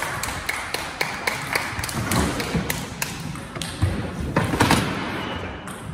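Scattered sharp clicks of table tennis balls bouncing on table and floor, with a few duller thuds about two seconds in and again near five seconds.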